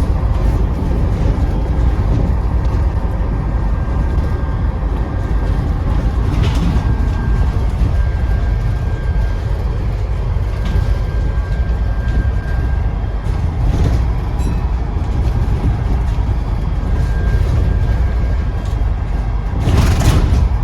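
Scania Enviro 400 double-decker bus on the move: steady low diesel engine rumble and road noise, with a thin high turbo whistle holding for several seconds in the middle. A short burst of hiss comes near the end.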